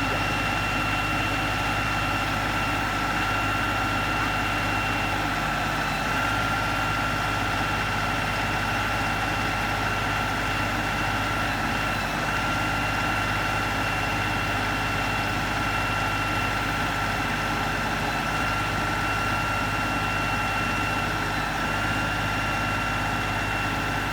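LS XR3135 compact tractor's diesel engine running at a steady speed, with a steady high whine over it.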